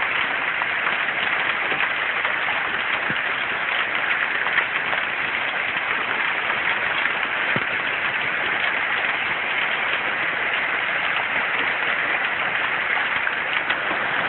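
Heavy thunderstorm rain, driven by strong wind, pouring down as a dense, steady hiss.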